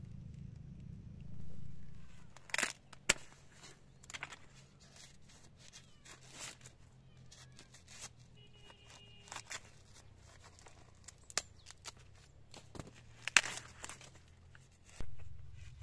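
Dry corn husks and leaves rustling and tearing as ears of corn are husked and broken off the stalks by hand, with sharp crackling snaps now and then.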